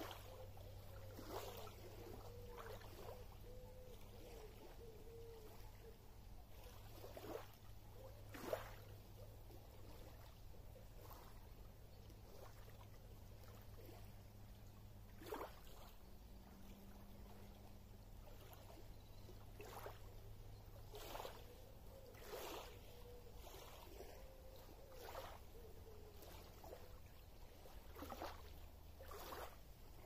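Small lake waves lapping on a pebbly shore in soft, irregular splashes every second or two, over a faint steady low hum.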